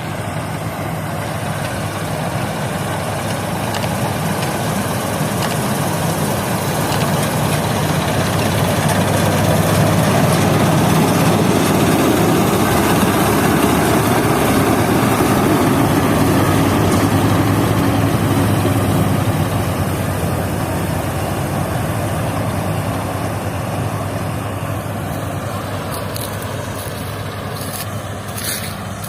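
Combine harvester running steadily while cutting wheat, a continuous engine hum that grows louder through the middle and eases off again towards the end.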